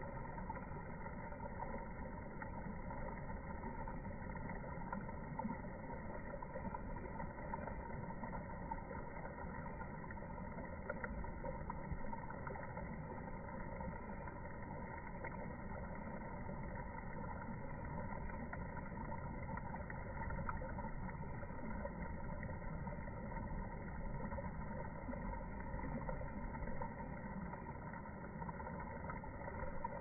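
Steady low rumbling background noise with no distinct events.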